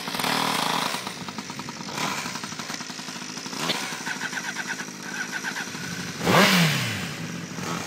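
A Honda CBR600 sport bike's inline-four and a 47cc two-stroke pocket bike idling side by side. About six seconds in, one engine is revved sharply once, its pitch rising and then falling back to idle.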